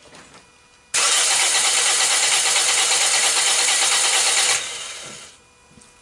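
Starter cranking a Toyota Corolla's 1NZ four-cylinder engine, which does not fire. The cranking starts suddenly about a second in, runs evenly for about three and a half seconds, then stops and dies away. This is the crank of a compression test that reads low compression on cylinders two and three.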